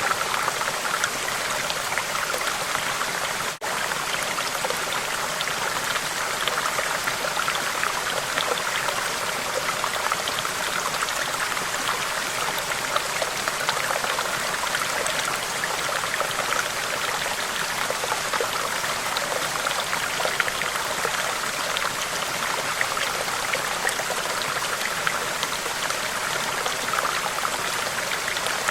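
Steady flowing water, a continuous splashing and trickling rush with no change in pace, broken once by a momentary drop about three and a half seconds in.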